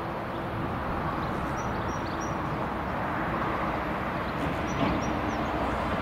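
A Class 66 diesel-electric locomotive hauling a container train on approach, its two-stroke V12 diesel engine running with a steady rumble that grows slowly louder. A few short, high chirps from small birds come through above it.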